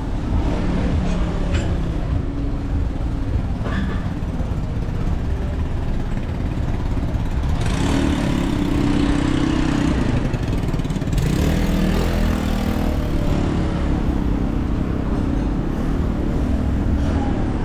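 Street traffic: a motor vehicle's engine passing by over a steady low rumble, loudest between about eight and thirteen seconds in.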